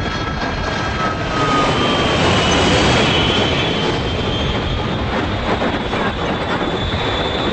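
Aircraft engine drone under a dense steady noise, with a thin high whine that slowly shifts in pitch.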